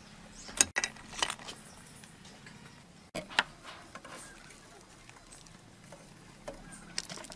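Scattered light clicks and taps of kitchen handling, such as a sauce packet and utensils against a ceramic bowl, over a faint low hum.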